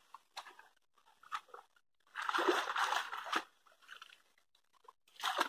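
Shallow muddy water splashing and sloshing in irregular bursts as a round basket-sieve is scooped through it and lifted. The longest splash starts about two seconds in and lasts over a second, with another short one near the end.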